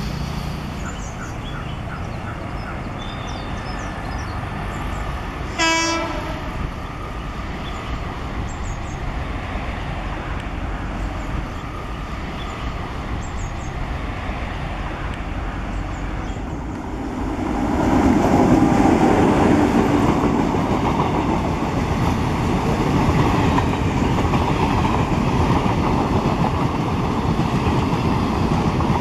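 A WAP 7 electric locomotive's horn sounds once, briefly, about six seconds in. From about seventeen seconds the locomotive and its passenger coaches pass at speed, with the loud steady noise of wheels running over the rails.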